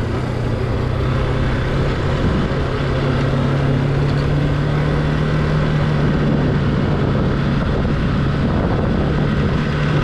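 Motorcycle engine running at a steady speed while being ridden, holding one steady pitch over a constant rush of road noise.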